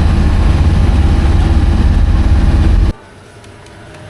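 Vehicle engine running with a loud, steady low rumble that cuts off abruptly about three seconds in.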